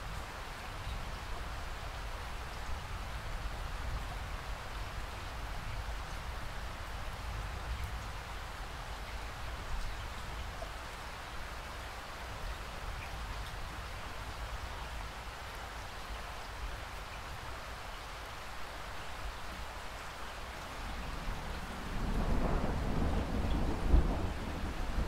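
Steady rain falling. Near the end a roll of thunder sets in, a low rumble that makes the whole sound clearly louder.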